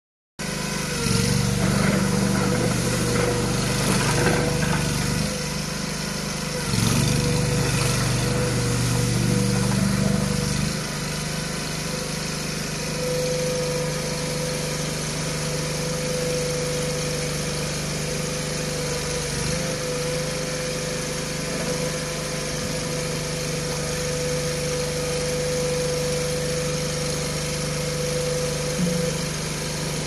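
Small engine of a stand-on mini tracked skid steer loader running while its bucket is worked, louder for two stretches in the first ten seconds, then running steadily with a steady whine alongside.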